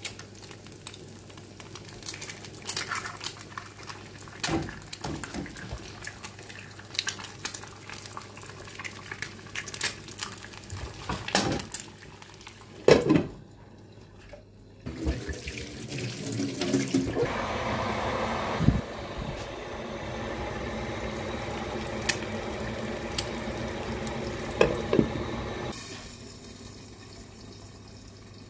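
Eggs cracked into a frying pan of sizzling onions, with scattered taps and knocks of shell and hands, and one sharp loud knock about halfway through. Then a glass electric kettle comes to the boil with a steady rushing, bubbling noise that falls away a couple of seconds before the end.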